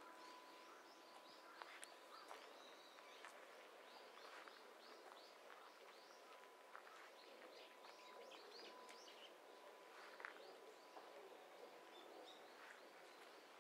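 Faint outdoor ambience of small birds chirping: many short, high, falling chirps, several a second, over a quiet background with a faint thin steady tone that stops near the end.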